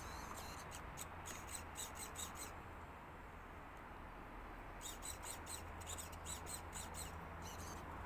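Faint songbird chirping in two quick runs of rapid high notes, each lasting a couple of seconds, over a low steady background rumble.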